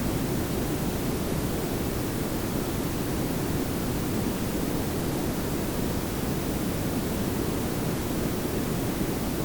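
Layered pink and brown noise, steady and even: a smooth hiss over a heavier low rumble, with no change throughout.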